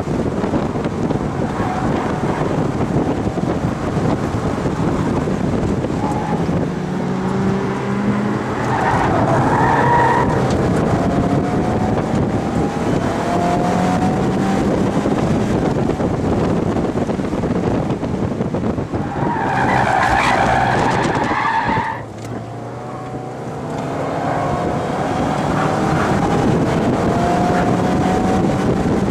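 Mazda MX-5 roadster's four-cylinder engine, heard from inside the open cockpit, revving up and down repeatedly as it is driven hard, over wind noise. The tyres squeal twice as the car slides, about a third of the way in and again about two-thirds in, and the engine briefly drops away just after the second squeal.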